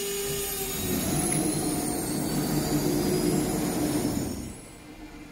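ATC CNC router running: high-pitched whines from the spindle and drives slide in pitch over a louder rushing mechanical noise, which cuts off about four and a half seconds in.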